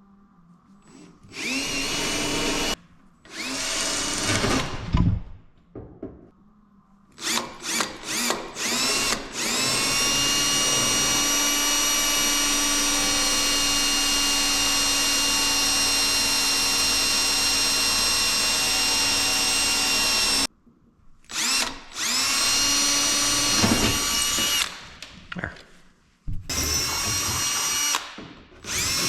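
Electric drill boring holes into the truck cab's sheet metal: the motor whine spins up and stops in several short runs, then holds for a long steady run of about ten seconds before more short bursts near the end.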